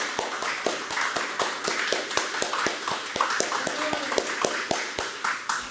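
A small group clapping, with many quick irregular claps, over voices in the room.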